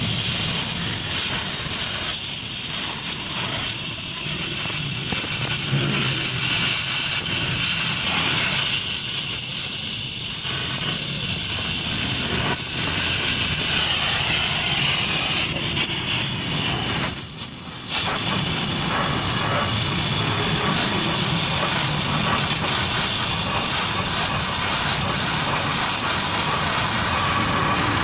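Oxy-acetylene cutting torch hissing steadily as it cuts through a steel exhaust pipe, over a low steady rumble. The hiss breaks off briefly about two-thirds of the way through, then resumes.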